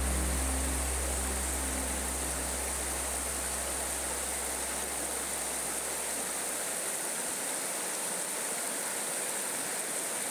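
Shallow, rocky river flowing: a steady rushing of water. Background music fades out over the first few seconds.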